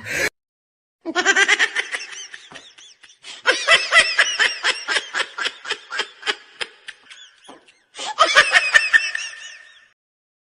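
Laughing sound effect: three bouts of rapid, pulsing laughter, the first starting about a second in and the last near the end, with dead silence between them.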